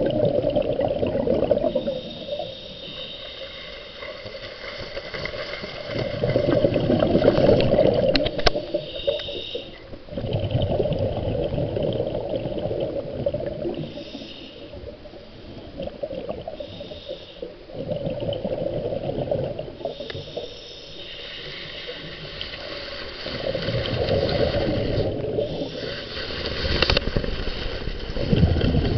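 Water noise picked up by a submerged camera: a rough rushing and gurgling that swells and fades every few seconds as the camera sways on its cord.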